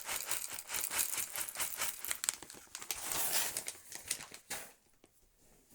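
Coffee beans being tipped into a wooden hand coffee grinder: a rapid pattering rattle of many small hard hits, which stops about four and a half seconds in.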